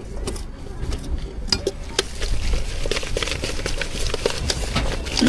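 Braised food being tossed and stirred with seasoning in a bowl: utensils clink and scrape against the bowl in quick small taps. The clatter gets denser and busier about two seconds in.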